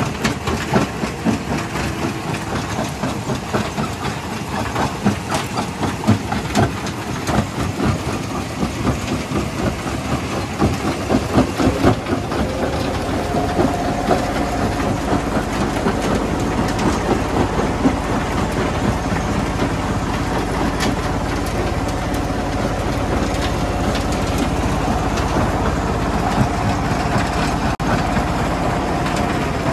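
Belt-driven jaw crusher running and crushing rock, a dense rattling clatter of stone knocking in the jaws. After about twelve seconds the knocking thins out and a steadier machine hum with a faint tone takes over.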